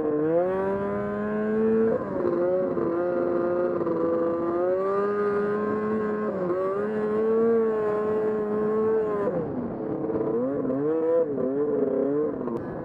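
Vintage snowmobile's two-stroke engine running under load as the sled climbs, heard from on board. Its pitch holds fairly steady at first, then from about ten seconds in rises and falls over and over as the throttle is worked on the steep slope.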